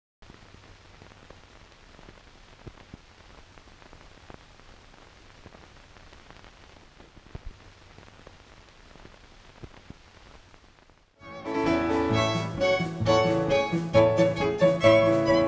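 Faint steady hiss with a low hum and scattered clicks, then bowed-string music starts abruptly about eleven seconds in, much louder.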